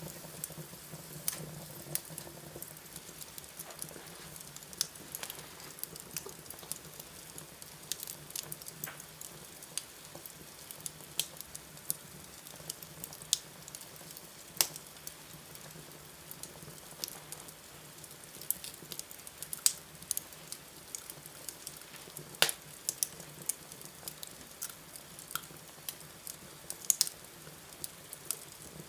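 Wood fire burning in a fireplace: irregular crackles and pops over a steady hiss, with a faint low hum underneath.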